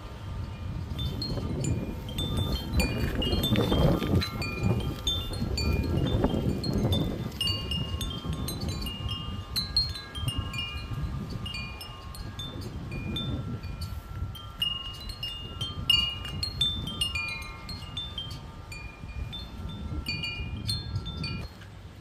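Wind chimes ringing irregularly in the breeze, many quick high notes overlapping. Wind gusts rumble on the microphone, strongest a few seconds in.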